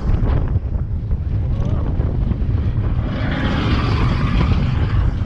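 Seven Dwarfs Mine Train roller coaster running along its track, heard from the train: heavy wind buffeting on the microphone over a steady low rumble, with a louder rushing noise from about three seconds in as the train leans into a curve.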